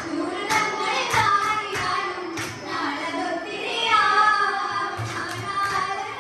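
A group of girls singing a folk song through microphones, with a steady sharp beat a little under twice a second.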